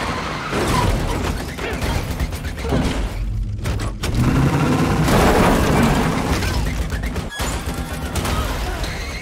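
Dense action-film sound mix from a car chase: vehicle noise, booms and thuds layered with music. It breaks off sharply for an instant about seven seconds in.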